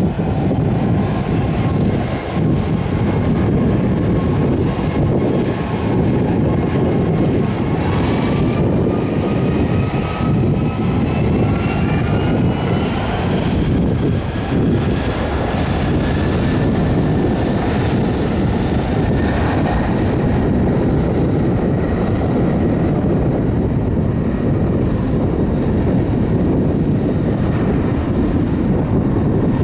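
Aircraft engines running loudly, a dense steady rumble with thin whining tones that rise in pitch about a third of the way through and then hold steady.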